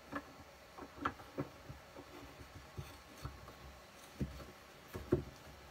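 Scattered faint clicks and light metal taps of a Defiance rifle action being screwed by hand onto the threads of a barrel held in a barrel vise, a few sharper knocks among them.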